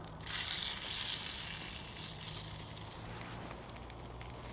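Cajun chicken sizzling in the Kelly Kettle's stainless-steel lid pan on the wood-fired hobo stove. The sizzle rises sharply just after the start and slowly dies down.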